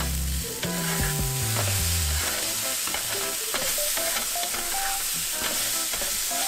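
Tofu frying in a hot pan, sizzling steadily while a spatula flips and stirs it, with many short scraping clicks against the pan. Background music tones sound underneath, strongest in the first two seconds.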